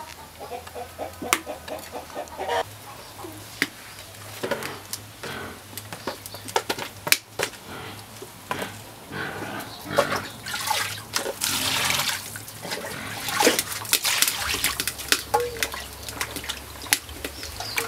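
Water splashing and sloshing as hands wash cut catfish pieces in a plastic basin, with scattered clicks and knocks. Chickens cluck now and then, most in the first couple of seconds.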